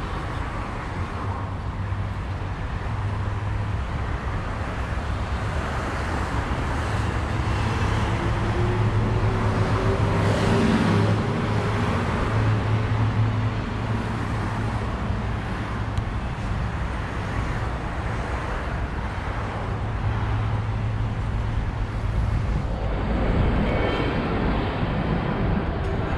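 Road traffic: a steady rumble of cars on a city street, with one vehicle passing louder about ten seconds in, its engine note falling as it goes by.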